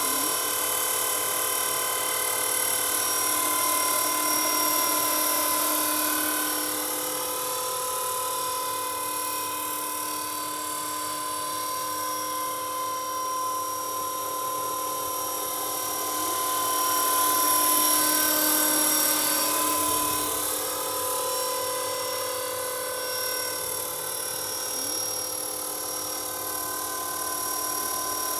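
Radio-controlled scale helicopter in a Roban MD500 fuselage running in flight: a steady high motor-and-gear whine over the rotor sound, with the tone slowly shifting and swelling louder about two-thirds of the way through.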